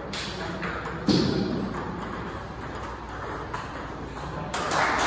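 Table tennis balls clicking on tables and paddles in a hall, a few light irregular clicks, with a heavier thud about a second in. The background grows louder near the end.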